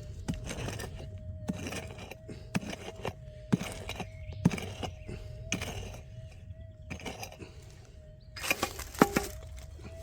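A digging tool striking and scraping hard, crunchy ground to dig out a gold target, about a dozen sharp impacts at uneven intervals with a quick cluster near the end. Under it runs the metal detector's steady threshold hum.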